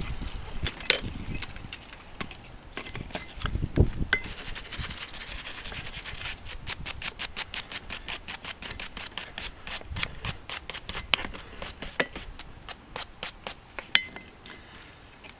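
Wire brush scrubbing ash and forge scale off forged railroad-spike bottle openers on an anvil, in quick, even back-and-forth strokes, with a few sharp clanks of the steel pieces against the anvil.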